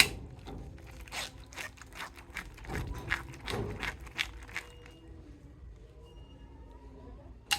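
Plastic toy packaging and figure being handled: a run of quick clicks, crinkles and scrapes, fading out after about five seconds, then one sharp click near the end.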